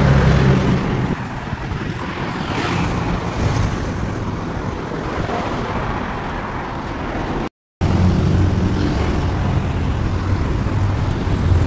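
Street traffic: vehicle engines running and passing close by, a steady low hum over road noise. All sound cuts out briefly about two-thirds of the way in.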